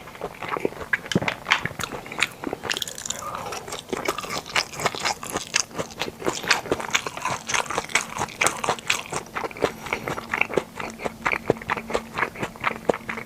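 Close-miked chewing and eating mouth sounds: a quick, irregular run of wet clicks and smacks, several a second, as food is bitten and chewed.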